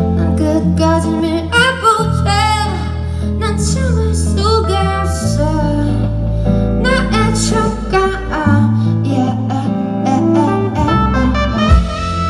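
Live band playing a song with bass, guitar and keyboard, and a voice singing over it at moments. The bass notes change every couple of seconds.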